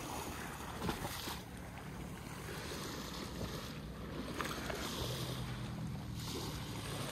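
Small waves lapping at a shallow stony sea shore, with wind on the microphone and a low steady hum that grows stronger about five seconds in.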